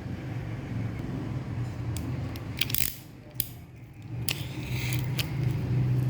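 Packaging of a manga volume being cut and handled for unboxing: a few sharp snips and crinkles, quieter for a moment in the middle, over a steady low hum.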